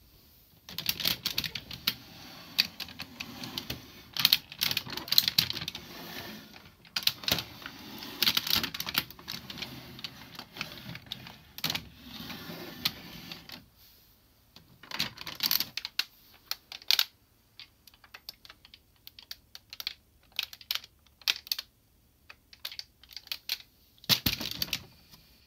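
Hard plastic parts of a DX Zyuohger combining robot toy being handled, pulled off and fitted back on: a busy run of clicks and rattles, then scattered single clicks with short gaps and a quick cluster of clicks near the end.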